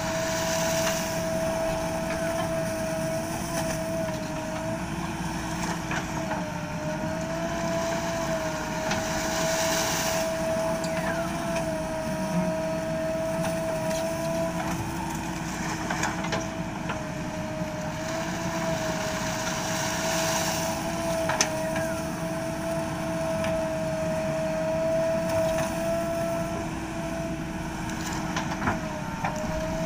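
JCB 3DX backhoe loader running steadily under work, with a steady whine that wavers slightly in pitch, and a few brief knocks now and then.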